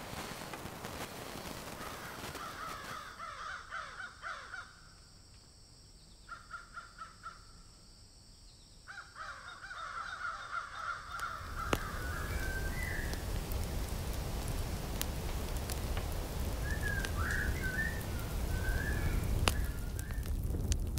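Crows cawing, repeated harsh calls for about ten seconds, then a few shorter bird calls over a low rumble.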